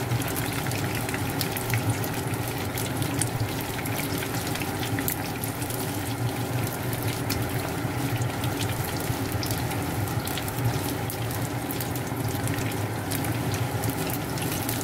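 Chicken wings frying in hot oil in a pan: a steady sizzle with dense, fine crackling pops.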